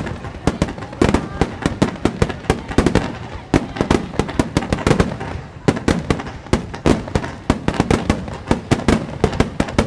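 Starmine fireworks barrage: aerial shells bursting in quick succession, many sharp bangs several a second, some louder and deeper than others.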